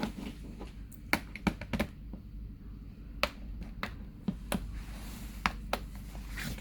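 About ten sharp plastic clicks at uneven intervals as a plastic card is worked around the edge of a Samsung Galaxy Tab A 7.0 (SM-T280) and the clips of its back cover let go one by one.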